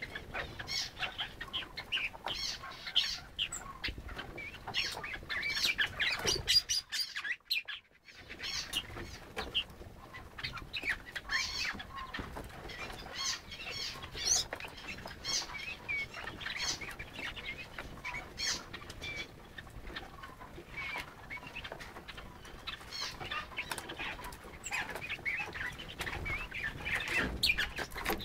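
Birds chirping and calling, many short calls overlapping throughout. They drop out suddenly for about a second roughly seven seconds in.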